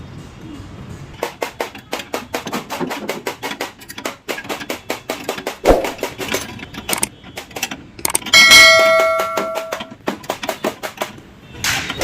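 Quick metal taps and knocks from the accident-damaged front of a Mahindra Bolero being dismantled, with one sharp heavy knock near the middle. About eight seconds in, a loud metal clang rings for a second and a half before dying away.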